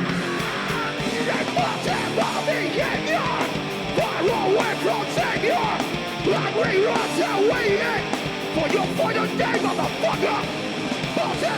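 Loud live punk rock band playing, with shouted vocals over the guitars and drums.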